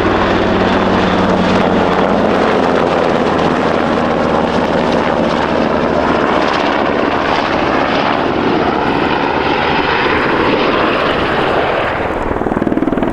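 NH90 transport helicopter flying past, its rotor and twin RTM322 turboshaft engines making loud, steady noise whose pitch slides slightly as it moves, easing off a little near the end.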